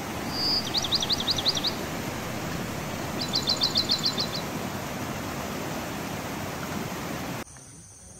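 Steady rush of flowing water from the riverside, with a songbird twice singing a quick run of sharp, high repeated notes over it, the first run led by a short whistle. The rushing cuts off abruptly near the end.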